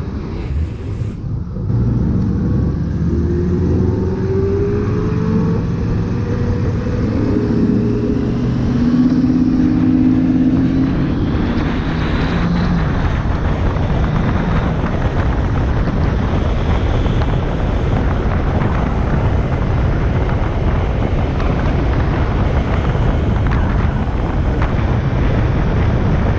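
Suzuki GSF1200 Bandit inline-four motorcycle engine pulling up through the revs under acceleration, then holding a steady note. After about a dozen seconds a loud, even rush of wind and road noise at speed takes over and covers the engine.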